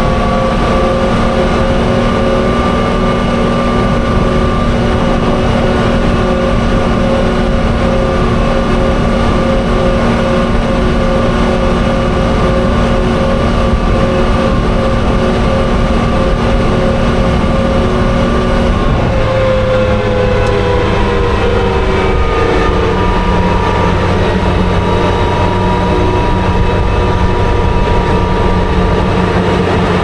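Daimler Ferret Scout Mk.1/2 armoured car driving on a paved road, its Rolls-Royce B60 six-cylinder petrol engine running at a steady speed. About two-thirds of the way through, the engine note slides down in pitch and then holds steady at the lower note.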